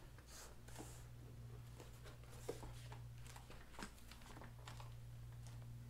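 Faint rustling, scraping and light taps of hands sliding and pressing along a ribbed plastic trailer bunk cover stretched over a board, over a steady low hum.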